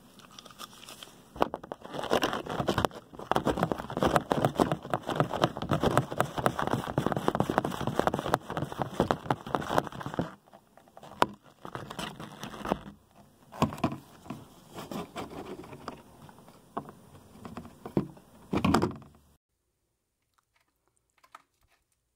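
Dense crackling and rustling as latex-gloved hands and clothing rub over the phone's microphone. It is heaviest in the first half, thins to scattered rustles and knocks, and stops a few seconds before the end.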